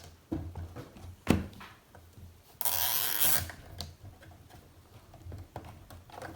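A plastic toy playset being handled in its cardboard packaging. There is a sharp knock about a second in, then a short, loud scraping rustle near the middle, with scattered light taps.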